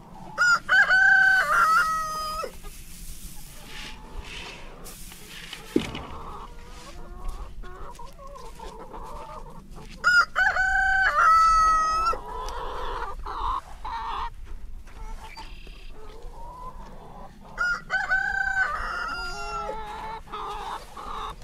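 A rooster crowing three times, each crow about two seconds long, with hens clucking between the crows.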